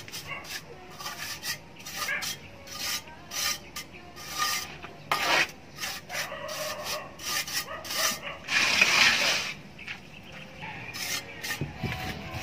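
A small steel trowel scraping and pressing patches of cement plaster onto a rough hollow-block wall: many short, irregular scrapes of the blade on the render, with a longer, louder scrape about nine seconds in.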